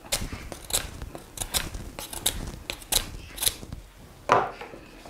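Knife blade shaving and cutting along a length of bucky briar, in short sharp strokes about every two-thirds of a second, with one louder knock about four seconds in.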